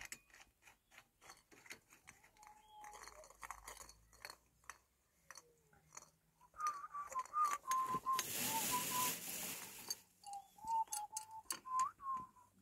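A person whistling a tune in short, wavering notes, starting about six and a half seconds in and again near the end. Small metallic clicks and taps come from an adjustable wrench on a chrome shower mixer's fittings. A hiss lasting about two seconds, the loudest sound, comes about eight seconds in.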